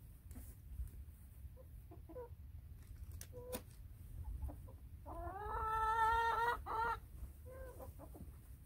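Chickens clucking in short, scattered calls. About five seconds in, one chicken gives a long drawn-out call that rises at first and then holds for about a second and a half, followed by a short call.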